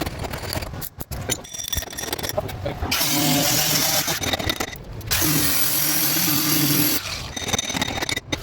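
A power tool run in two bursts of about two seconds each, a steady hum under a loud hiss, with a brief pause between them.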